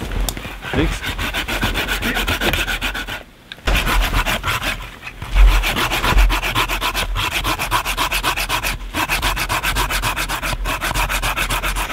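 Hand saw cutting through a wooden branch in quick, even back-and-forth strokes, stopping briefly a few times.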